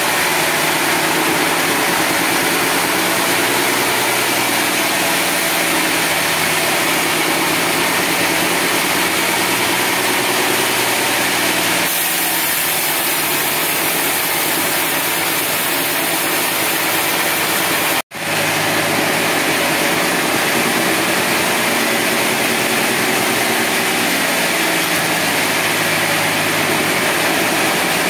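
A sawmill's inline power-unit engine running steadily under a loud, even mechanical noise from the saw machinery. The sound drops out for an instant about two thirds of the way through, then resumes unchanged.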